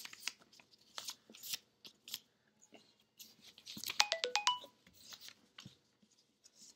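Paper rustling and being handled, with a quick run of short electronic beeps at stepping pitches about four seconds in, like a jingle lasting about half a second.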